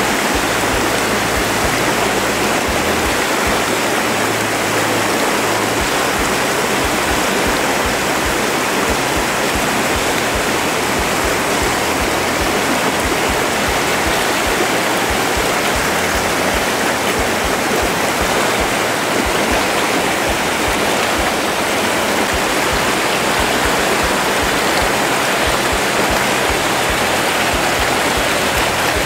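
Fast-flowing river rushing over rocks and riffles: a steady, loud, even wash of water.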